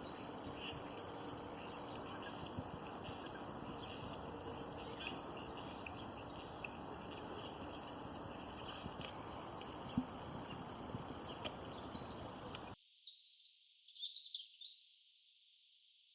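Small birds chirping, with repeated short high calls over a steady background hiss. About three-quarters of the way through, the hiss cuts off abruptly and a few louder chirps follow before the sound fades.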